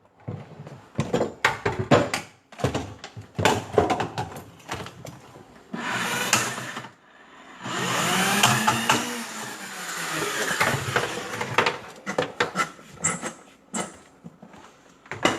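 Clanks and knocks of a drain rod being worked loose from an under-sink fitting. Midway, a power drain rodder's motor runs for about three seconds, its whirr rising and falling in pitch. The cable is caught in a check valve.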